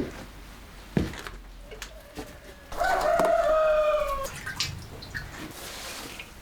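A rooster crowing once, about three seconds in: a single call lasting about a second and a half that falls slightly in pitch toward the end. A couple of sharp knocks come in the first second.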